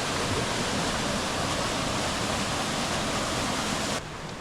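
Steady rush of flowing water, which drops off abruptly to a quieter rush about four seconds in.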